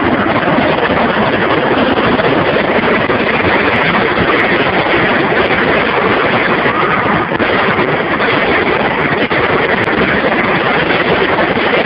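Fireworks firing in a dense, continuous barrage, the bursts running together into one steady, loud noise.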